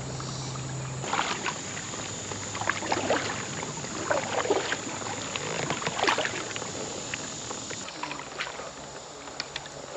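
Irregular water splashes and sloshing around a kayak on a creek, over a steady high insect buzz that fades out about eight seconds in.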